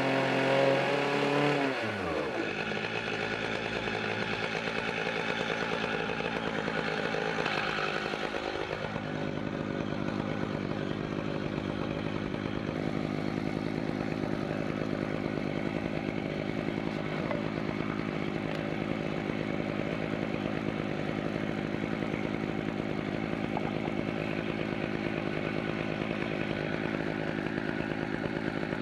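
Chainsaw on an Alaskan chainsaw mill running hard in a maple log, easing off about two seconds in. It then runs on steadily at a lower level, with one brief rise in pitch around nine seconds in.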